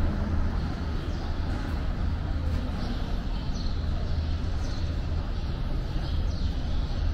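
Steady low rumble of an approaching commuter train at an open railway platform. Small birds chirp briefly every second or so.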